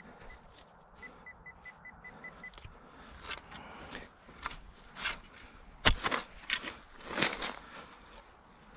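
Handheld metal-detector pinpointer giving a run of short, high beeps, about five a second, starting about a second in: it is signalling a metal target in the ground. Then a spade scraping and chopping into mulched, root-filled soil, with a few sharper strikes.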